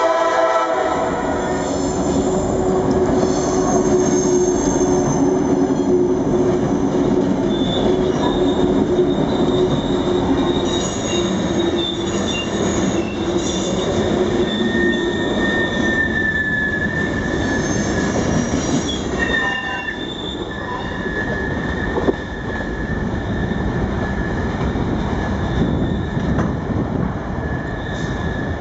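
Freight train rolling through a grade crossing: a horn blast that cuts off about a second in, then the steady heavy rumble of the passing train and its cars, with metal wheels squealing in high thin tones that come and go.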